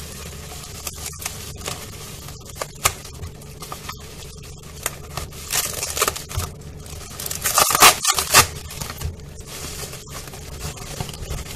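Bubble-wrap packaging crinkling and rustling as it is pulled and peeled off a phone box, with the sticky wrap tearing away in louder rough bursts about halfway through and again a couple of seconds later.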